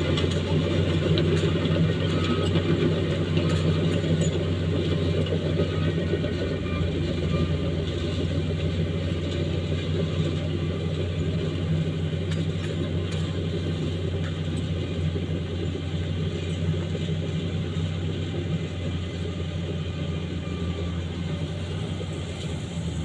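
Crawler bulldozer's diesel engine running steadily with a low rumble, slowly growing fainter as the machine moves away.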